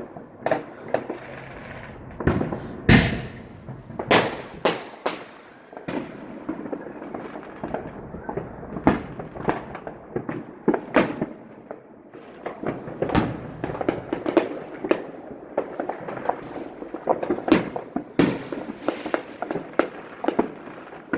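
Neighbourhood consumer fireworks going off all around: a near-continuous crackle of small firecracker pops with louder single bangs scattered through, the biggest about three seconds in and again near eighteen seconds.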